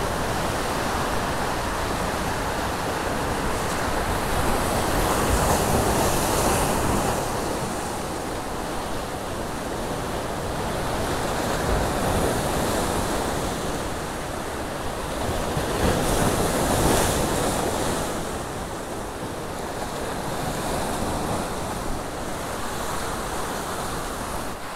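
Ocean surf washing and breaking against rocks, a steady rush that swells louder every few seconds as each wave surges in.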